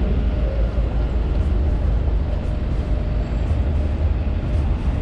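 Busy city street: a steady low rumble of road traffic, with wind buffeting the microphone.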